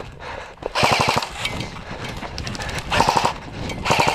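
Airsoft guns firing several short full-auto bursts, each a fast, even rattle of shots. The strongest burst comes about a second in and the others follow every second or so.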